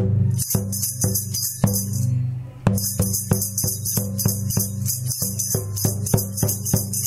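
Sound-art collage of rhythmic metallic jingling and sharp clicks over a steady low hum. The jingling stops for under a second about two seconds in while the clicks carry on.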